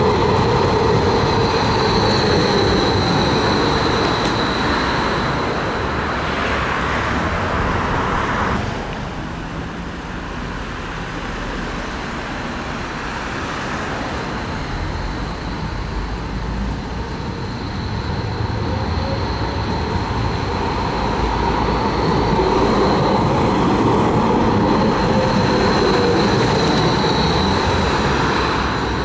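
Bombardier Flexity M8D-NF2 low-floor trams running on street track: electric traction motors whining high, with steel wheels rumbling on the rails, as one tram runs past close by and, after a break about 8 seconds in, another approaches and grows louder, drawing into the stop near the end. Road traffic runs alongside.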